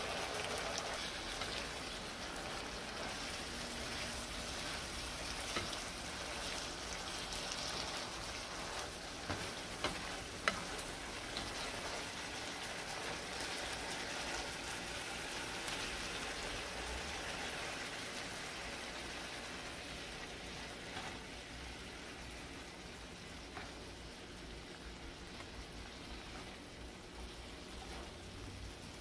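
Ground beef in taco seasoning sauce simmering and sizzling in a nonstick skillet, a steady hiss that grows a little quieter in the second half. A few clicks and scrapes from a spatula stirring the meat are heard in the first half.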